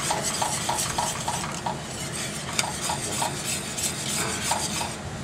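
A utensil stirring thick flour gravy in a stainless steel skillet: quick, regular scraping strokes against the pan, about three a second, over a steady hiss from the hot gravy.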